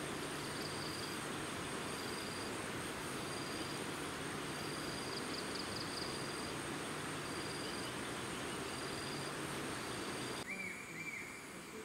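Rainforest insects: a steady high trill and a buzz that comes and goes about once a second, over a steady rushing noise. About ten and a half seconds in, the rushing cuts off abruptly and a couple of short chirps follow.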